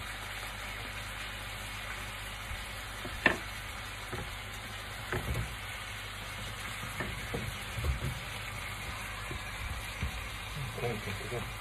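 Sweet-and-sour pork stir-fry sizzling in a frying pan with a steady hiss. A few sharp knocks and clicks of utensils on the pan and the wooden chopping board come through as greens are added and stirred in; the loudest is about three seconds in.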